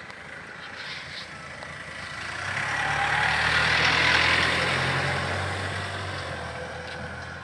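A motor vehicle passing by: its engine and road noise grow louder to a peak about four seconds in, then fade away.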